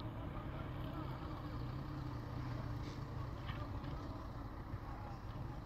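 An engine running steadily, a low even hum that does not change.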